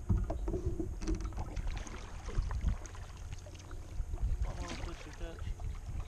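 Water sloshing and slapping against a kayak's hull, with scattered knocks and clicks and a low rumble of wind on the microphone.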